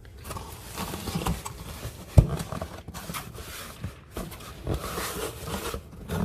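Packing material rustling and crinkling as a cardboard shipping box is unpacked by hand, with a sharp knock about two seconds in.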